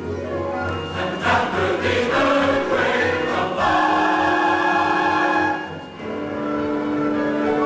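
Choir singing with an orchestra: a quieter opening, a full loud choral entry about a second in and a held chord, a brief drop in level near six seconds, then another sustained chord.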